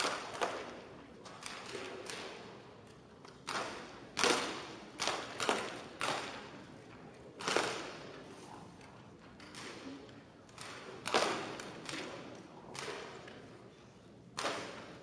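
Several Daisy Model 499 BB guns being fired in turn by shooters on a firing line. About a dozen sharp, irregularly spaced shots, each with a short echo in a large hall.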